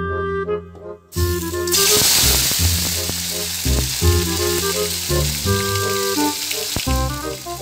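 Chopped chillies, tomatoes, shallots and garlic hit hot oil in a wok and start sizzling loudly about a second in, the frying going on steadily after that. Background music with a melody plays throughout.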